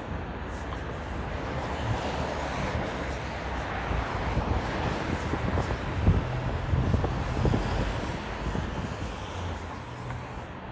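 Road traffic on a city street: a steady wash of passing vehicles that grows louder near the middle as something heavier goes by, then eases off.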